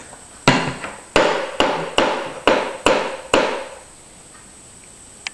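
A toddler banging a hard object on a hard surface: seven sharp knocks, roughly two a second, each with a short ringing decay, then stopping.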